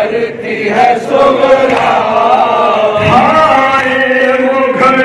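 Men chanting a noha, the Shia mourning lament: a lead reciter sings at a microphone with the group's voices joining in.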